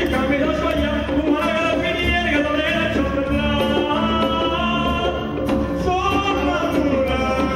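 A man singing a song in held, gliding notes over instrumental accompaniment.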